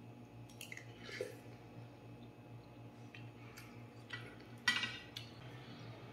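Metal spoon and fork clinking and scraping against a stainless steel bowl of noodle soup: a few scattered clinks, the loudest about two-thirds of the way through.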